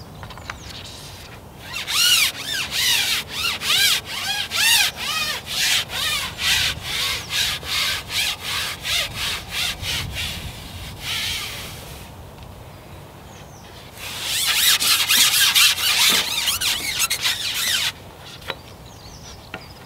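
Carbon fishing pole being shipped hand over hand, its sections rubbing as they slide across the pole rest in repeated strokes, about two a second. After a short lull, a faster run of strokes follows near the end.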